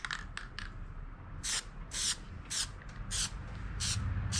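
Aerosol can of Plasti Dip rubber coating sprayed in short hissing bursts, roughly two a second, starting about a second and a half in.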